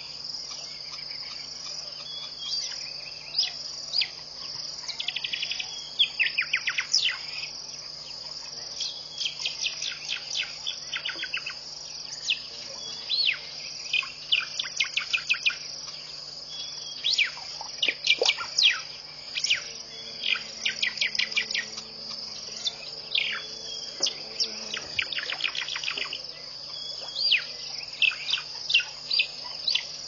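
Dawn chorus of wild birds: many short, downward-sweeping whistled notes, often in quick runs of several a second, over a steady high-pitched insect drone.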